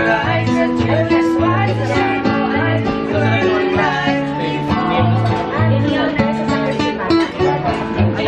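A woman and a man singing a song together, accompanied by an acoustic guitar.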